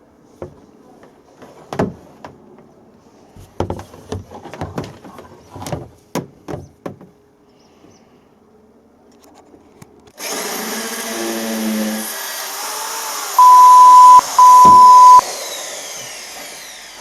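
Clicks and knocks of the hammer drill being handled and set up. Then, about ten seconds in, the Wickes 1050 W hammer drill's motor starts abruptly and runs, and it winds down with a falling pitch near the end. Two loud, steady high beeps cut in while it runs.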